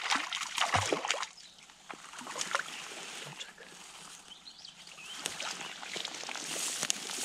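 Hooked trout splashing and thrashing at the surface close to the bank, sharpest in about the first second. Softer sloshing water follows, building again near the end.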